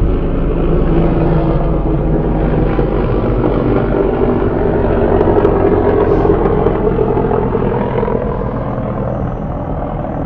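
An engine droning steadily, its pitch drifting a little, loudest around the middle and fading toward the end.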